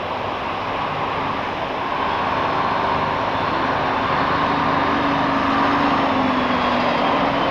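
Wuppertal Schwebebahn suspension-railway train running along its overhead track: a steady rumble with held humming tones, growing gradually louder as it approaches.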